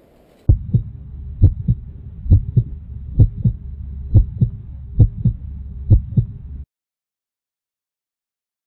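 Heartbeat sound effect: paired lub-dub thumps about once a second over a low hum, cutting off suddenly into dead silence about two-thirds of the way through.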